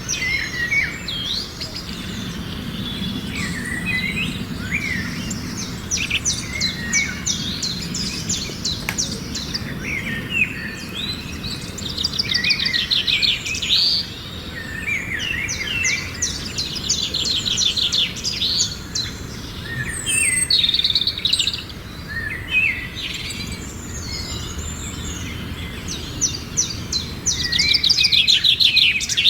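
Several birds chirping and singing, with rapid trills recurring every few seconds, over a faint low background rumble.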